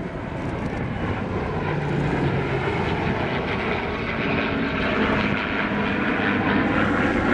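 Engine noise of a P-51D Mustang's Merlin V12 and an F-4C Phantom II's twin J79 turbojets heard together as the pair fly past in close formation: a steady engine noise growing gradually louder.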